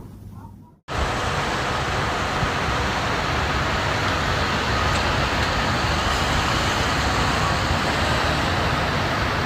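A loud, steady rushing noise that starts abruptly about a second in, after a moment of near silence.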